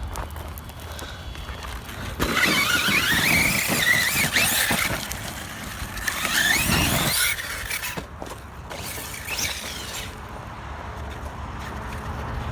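Arrma RC truck's brushless electric motor and drivetrain whining under throttle in two bursts, the pitch wavering up and down. The first burst starts about two seconds in and the second about six seconds in.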